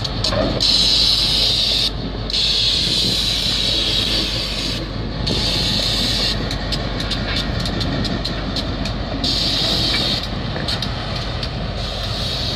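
Diesel switcher locomotives running as they move slowly along the track, a steady low engine rumble with a hiss that comes and goes several times.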